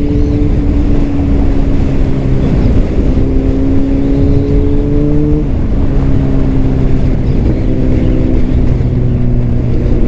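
Honda CBR600RR's inline-four engine through a Leo Vince exhaust, running steadily under light throttle while cruising. The engine note climbs slowly, dips slightly about five and a half seconds in, then climbs again.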